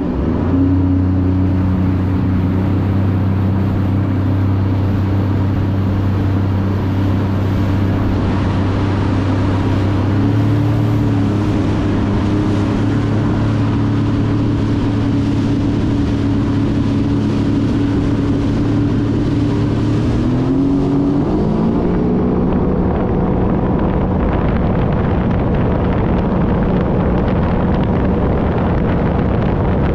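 Sea-Doo RXP-X 300 personal watercraft's supercharged Rotax 1630 ACE three-cylinder engine running hard under way, with water rushing and spraying along the hull. The engine note climbs in pitch twice, about a third of the way in and again about two-thirds of the way in, then holds steady.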